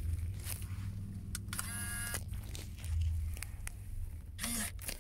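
Clicks and plastic handling knocks as a phone is fitted into a car dashboard phone mount, with a short electronic beep about two seconds in and a brief rustle near the end, over a low car-cabin hum.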